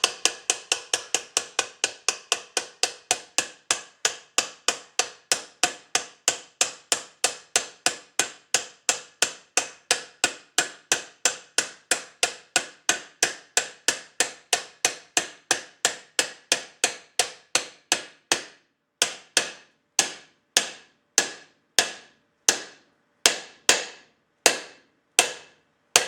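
A new bearing being tapped gently into the main housing of a UFO floor-sander orbital attachment. It is a long run of light, evenly spaced, ringing taps, about three a second, slowing to under two a second for the last several seconds as the bearing seats.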